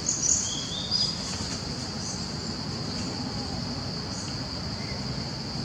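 Steady high-pitched drone of insects such as crickets or cicadas, with a couple of short high chirps in the first second.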